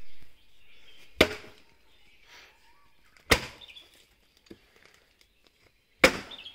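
Heavy axe blows chopping into a wooden log, three sharp strikes about two to three seconds apart.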